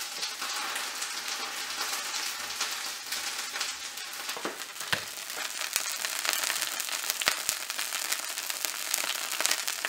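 Butter sizzling steadily in a frying pan as a sandwich toasts in it, with many small crackles and a few sharper pops.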